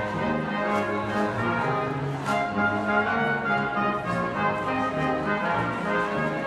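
Brass music: trumpets and trombones playing a tune in sustained, changing chords.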